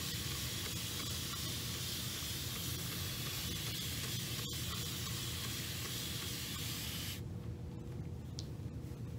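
Spray bottle misting water onto hair, a steady hiss that stops about seven seconds in.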